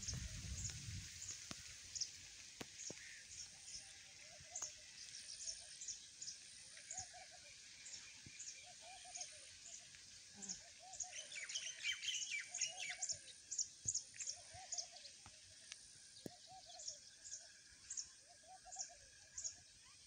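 Birds chirping in open countryside: short high chirps keep repeating, while a lower call repeats roughly once a second. A denser flurry of calls comes about halfway through.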